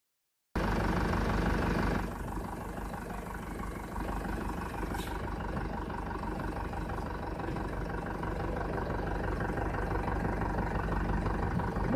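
Mahindra 475 DI tractor's four-cylinder diesel engine running steadily. It starts about half a second in, a little louder for the first couple of seconds, then settles to an even idle.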